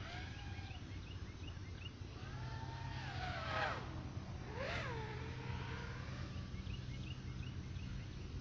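Animal calls, likely birds: runs of short high chirps, and in the middle two longer wavering calls, the louder about three and a half seconds in, over a steady low hum.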